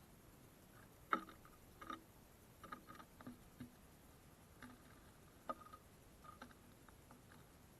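Faint, irregular taps and clicks, about a dozen, the loudest a little over a second in, as small birds peck and hop about on a bird feeder.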